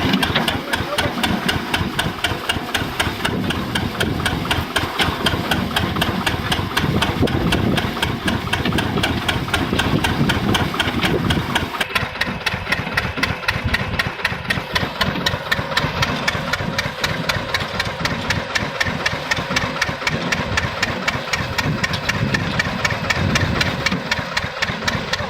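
Small engine running steadily with a fast, even beat, powering a homemade soil washing machine.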